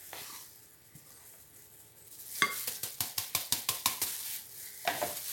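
Wheat flour poured from a plastic bowl into a glass mixing bowl: a faint soft sliding at first, then about halfway in a quick run of sharp taps, about five a second, as the tipped bowl is knocked and shaken to empty it, with a few more taps near the end.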